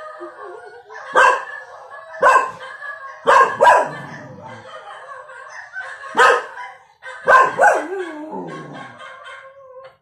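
Cockapoo puppy barking, about seven short sharp barks in irregular bursts, some in quick pairs, over quieter TV audio.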